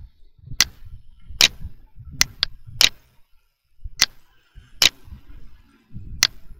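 Computer mouse clicking: about eight sharp, separate clicks at uneven intervals, with a low rumble between them.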